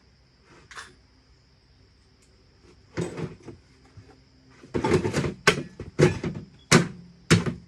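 A series of sharp knocks and clunks from parts being handled and fitted while working on a dirt bike: a few about three seconds in, then one about every half second through the second half.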